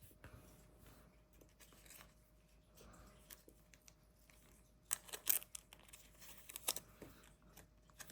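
Trading cards and their foil pack wrappers being handled: faint at first, then several short crinkling, tearing rustles from about five seconds in.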